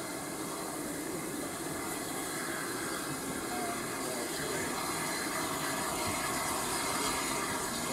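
Steam-hauled heritage train behind LMS Ivatt tank engine 41312 running steadily, heard at an open carriage window: an even rolling rush of wheels on rail with hiss, growing slightly louder.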